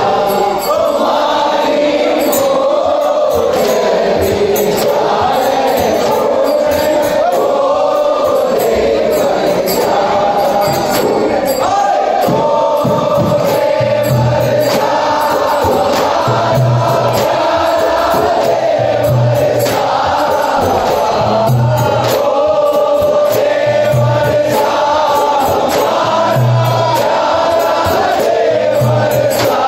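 Men singing a Holi folk song into microphones over a PA, with a crowd singing along. From about halfway through, a deep drum beat lands about every two and a half seconds.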